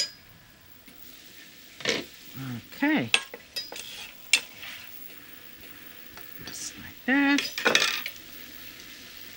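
Chopped vegetables sizzling softly in a stainless steel skillet. A metal bench scraper makes a few sharp clicks as scallion whites are scraped into the pan.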